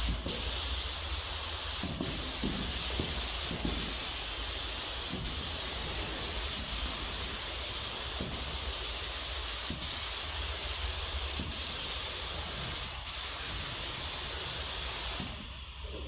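Compressed-air gravity-feed spray gun spraying red car paint: a steady hiss with a brief break about every second and a half, stopping near the end.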